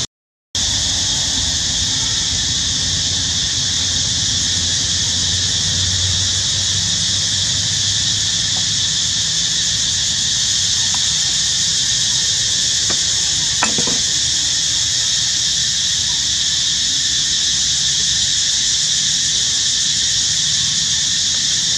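A steady, high-pitched hiss. It cuts out for half a second at the very start, and one short, faint squeak comes a little past the middle.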